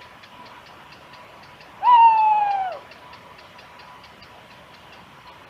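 A single hooting call about a second long, fairly steady in pitch and dropping at the very end, over a faint, fast, even ticking.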